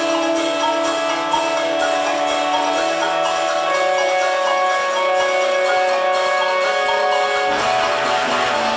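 Live instrumental film-accompaniment music from an improvising ensemble: layered, held pitched notes that shift every second or two, joined by a denser, rougher layer near the end.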